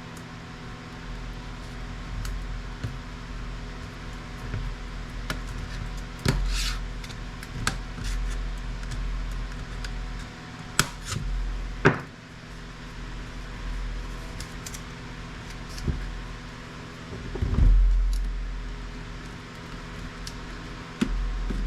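Scattered clicks, knocks and scrapes of plastic and metal parts as an LCD monitor's display panel is pried apart by hand, with a heavier thump near the end. A steady fan hum runs underneath.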